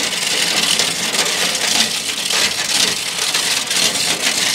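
Manual chain hoist being pulled hand over hand, its steel chain rattling and clattering continuously as it lifts a pickup truck bed.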